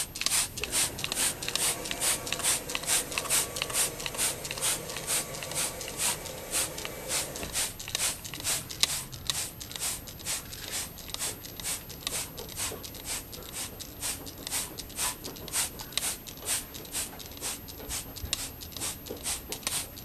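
Trigger spray bottle squirting liquid onto fibreglass duct-board insulation in a long run of quick, short squirts, about two to three a second.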